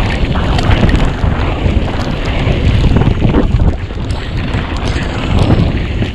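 Wind buffeting the microphone and the constant rumble of a downhill mountain bike riding fast over a rough dirt trail. Scattered sharp knocks and rattles come through as the bike hits bumps.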